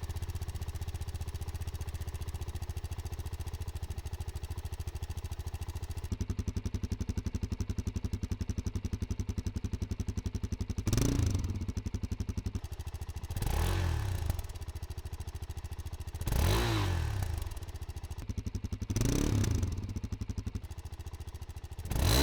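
Suzuki DR-Z4S and DR-Z400S single-cylinder four-stroke motorcycle engines idling with a steady pulse, the sound switching from one bike to the other about six seconds in. Later come five short throttle blips, each a quick rise and fall in pitch, about every two and a half to three seconds.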